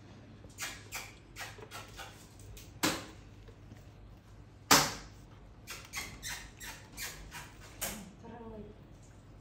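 Sharp taps and knocks as a baby macaque moves about on a laminated board and among kitchen objects, with two louder clacks about three and five seconds in and a quick run of taps near the end. A brief faint wavering pitched sound follows just after.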